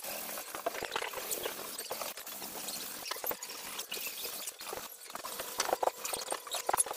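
Hand sanding of a plastered wall and ceiling edge: irregular scratchy rubbing with small clicks and knocks, which come thicker near the end.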